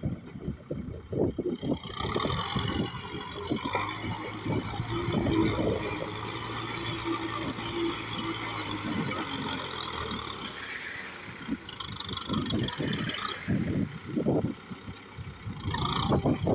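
Kubota tractor running with a steady engine tone under many irregular clanks and rattles as it pushes rice-field soil. The engine note is most even through the middle, and the knocking is busiest near the start and end.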